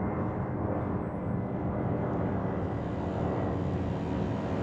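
Electric motors and rotors of a 3D-printed V-22 Osprey tiltrotor model running steadily in flight, a droning whir with faint steady tones.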